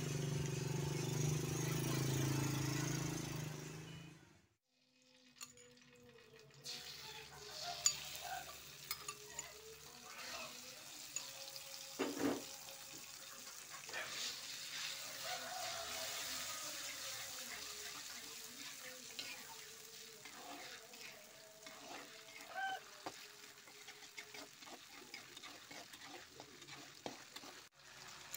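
Ground chili paste frying in oil in a wok: a steady sizzle with a metal spatula stirring and scraping the pan in frequent small clicks. Background music plays for the first four seconds and cuts off.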